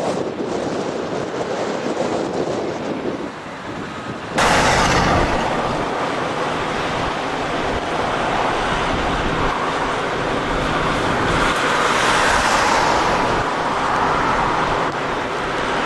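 High storm wind rushing and buffeting the microphone in gusts of up to 60 mph. About four seconds in it jumps abruptly to a louder, brighter rush.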